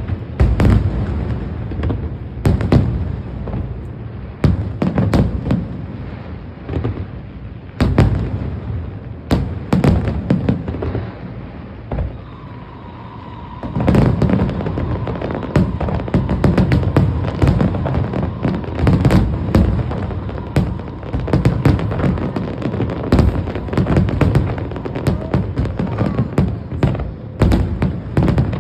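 Fireworks display: a rapid, irregular series of aerial shell bursts and deep booms, thinning to a short lull about 12 seconds in and then growing denser again.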